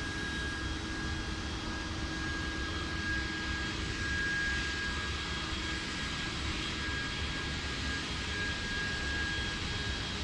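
Steady rushing background noise with a faint constant hum, unchanging throughout.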